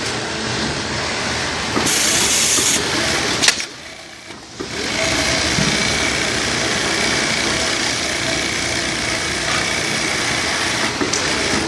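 Automated industrial sewing machine running steadily, with a short loud hiss about two seconds in and a click just after, a brief drop in level about four seconds in, then the machine running on.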